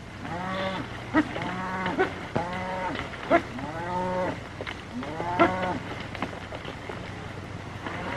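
A herd of cattle mooing, many calls one after another and overlapping, each rising and falling in pitch. A few sharp cracks stand out among them.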